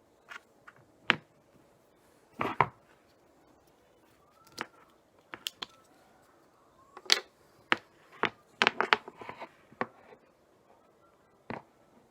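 Irregular sharp clicks and knocks, some single and some in quick clusters, as hard objects are handled.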